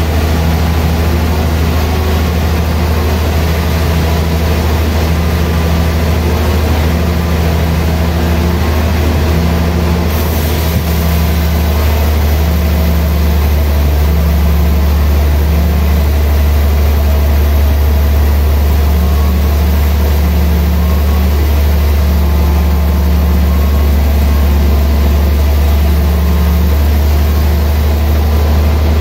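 Large band sawmill running with a loud, steady low hum as its blade rips lengthwise through a big hardwood slab. The sawing noise turns brighter and hissier about ten seconds in.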